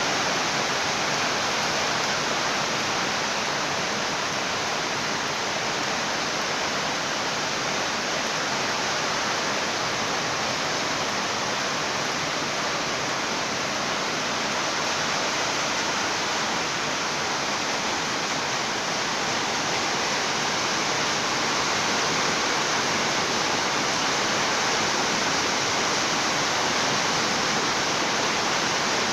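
Rain falling steadily: an even hiss that holds at the same level throughout, with no thunder.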